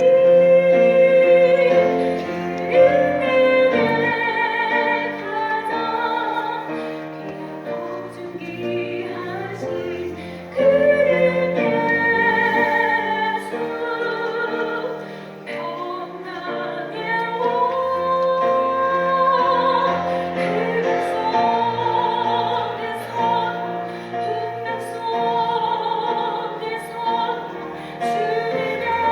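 A church choir singing a cantata with piano accompaniment, with long held notes and wide vibrato over steady piano chords.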